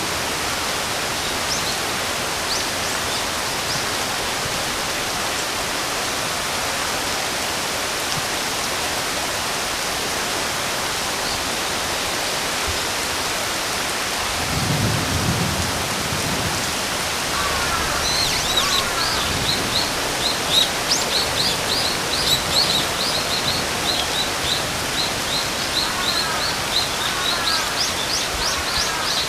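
Steady rain hiss with a brief low rumble about halfway through. From about two-thirds of the way in, a bird chirps rapidly in quick repeated high notes, with some lower sweeping calls among them.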